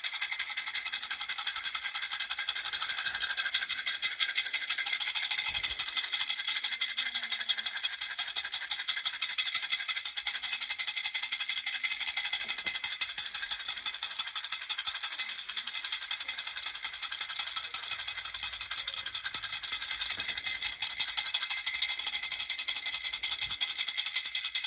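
A rattle shaken steadily and fast, its beads clattering in an even, unbroken stream of small high-pitched ticks.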